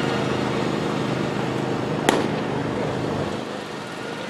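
A pitched baseball smacks into the catcher's mitt with one sharp pop about two seconds in. Under it a utility vehicle's engine hums steadily, then fades a little after three seconds.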